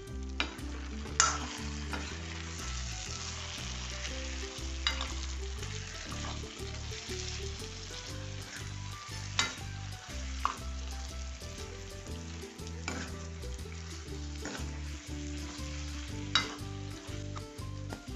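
Lapsi (Nepali hog plum) pieces sizzling in hot oil in a pan while a steel ladle stirs them: a steady sizzle with sharp clicks of the ladle knocking and scraping the pan about half a dozen times.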